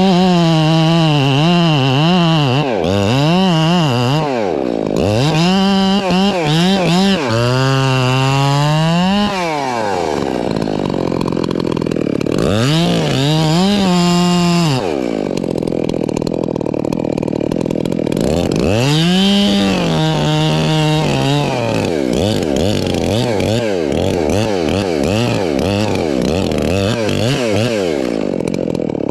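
Makita gas chainsaw cutting through a black cottonwood trunk. It is held at high revs in the cut, then drops off and is blipped back up again and again, so its pitch swoops down and up repeatedly. In the second half it runs lower and rougher between cuts.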